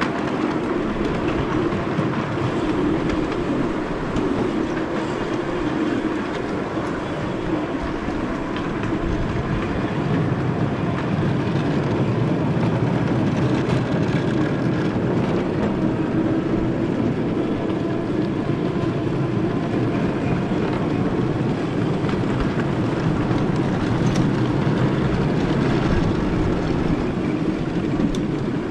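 Miniature railway train running steadily along the track, with a continuous rumble that eases slightly for a few seconds about a quarter of the way in, then picks up again.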